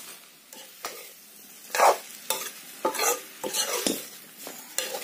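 Metal spoon stirring and scraping in a wok of frying curry, with the food sizzling: a string of irregular scrapes and knocks of the spoon against the pan over a steady sizzle.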